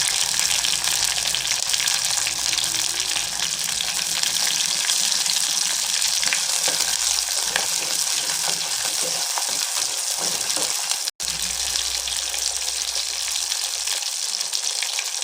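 Shallots and curry leaves sizzling steadily in hot oil as they sauté with a little salt. The sound cuts out for an instant about eleven seconds in.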